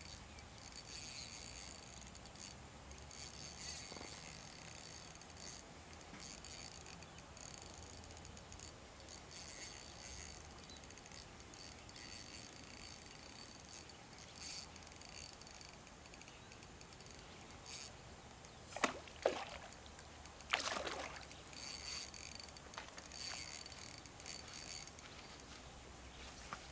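Outdoor ambience by a pond: a faint, high, thin insect buzz that comes and goes, with a few short louder sounds a little past the middle.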